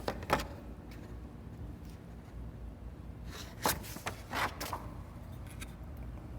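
A few short, light knocks and clicks of parts being handled, two near the start and a louder couple about four seconds in, over a low steady hum.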